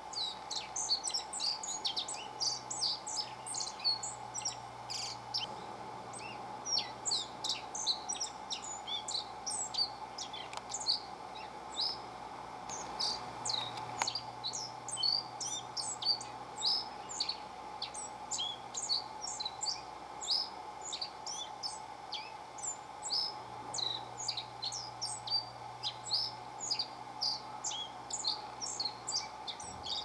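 Male black-faced bunting singing: repeated short phrases of quick, high, sharp notes separated by brief pauses. A faint steady hum runs underneath.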